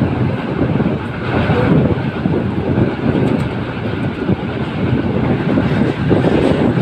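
Passenger train running at speed, heard from an open window beside the coach: a steady, loud rumble of wheels on the rails.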